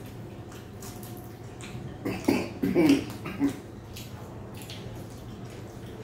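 Eating sounds of two people eating luchi with curry by hand: wet chewing and mouth-smacking clicks throughout. About two seconds in, a brief louder sound lasts about a second and a half.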